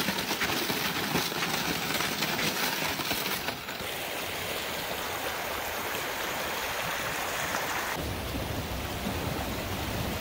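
Footsteps on a snowy, icy trail for about the first three and a half seconds, then a steady rush of a shallow creek flowing over stones between snow and ice banks. From about eight seconds in, the water sound gains a low rumble.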